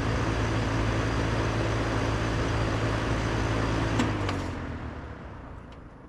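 Lennox Merit ML17XC1 air conditioner outdoor unit running, a steady hum from its scroll compressor under the air noise of its condenser fan, then shutting down: a sharp click about four seconds in as it cuts off, and the sound dies away over the next second or so, its pitch sliding down.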